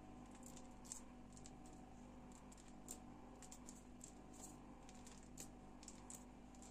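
Near silence with faint, scattered light ticks of fingertips pressing into soft pide dough on a baking tray, over a steady low hum.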